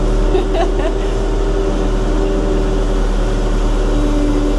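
Diesel engine of a grey-cab JCB 3CX Sightmaster (P7) backhoe loader running steadily at idle, a constant hum and rumble.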